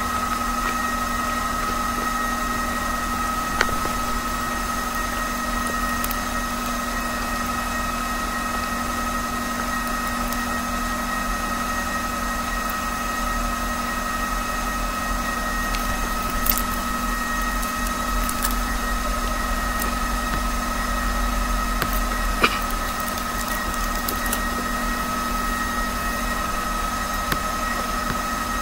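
A steady hum with several fixed tones, broken by a few isolated faint clicks.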